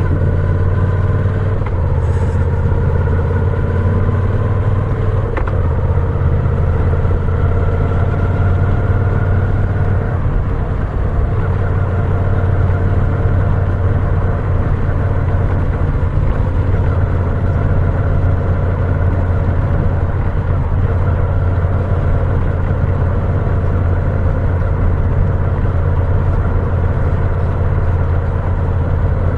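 Moto Guzzi V7's air-cooled V-twin running steadily while the bike cruises along a road, heard from on board.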